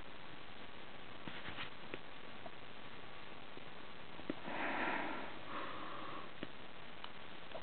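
A person sniffing once, about halfway through, over steady hiss with a few faint clicks.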